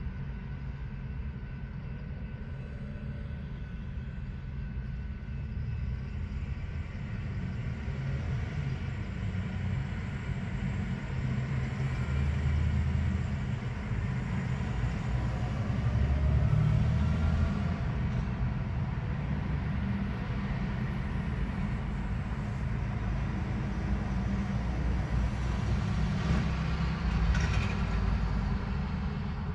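Loaded coal hopper cars rolling past, a steady low rumble of steel wheels on rail, with road traffic passing in the foreground.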